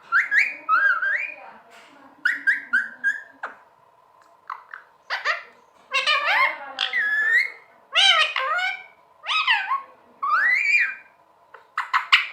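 Pet green parrot giving a run of about ten short whistled calls, each sliding up and down in pitch, with brief pauses between them.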